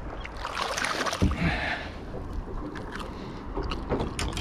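Water splashing beside a small boat as a hooked skippy (silver trevally) is brought to the boat. There is a dull knock about a second in and a few sharp clicks near the end.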